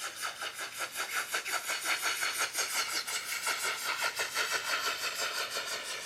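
Fast, even mechanical rattle of a small motor running, about ten clicks a second.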